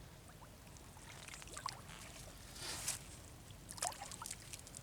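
Light water splashing and trickling, with a longer splash about two and a half seconds in and a few small splashes later.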